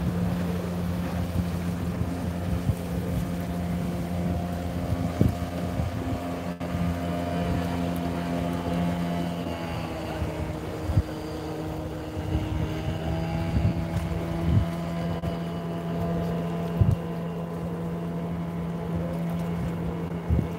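Motorboat engine running with a steady multi-tone hum that shifts in pitch about halfway through. Wind buffets the microphone, with a few light knocks.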